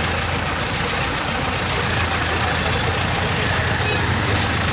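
Diesel engine of an ACE pick-and-carry mobile crane idling steadily.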